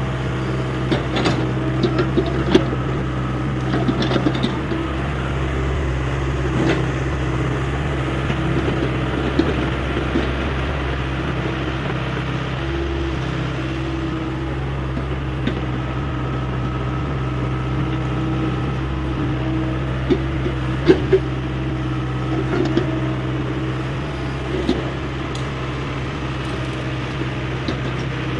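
Hyundai 85A excavator's diesel engine running steadily under work, with occasional sharp knocks.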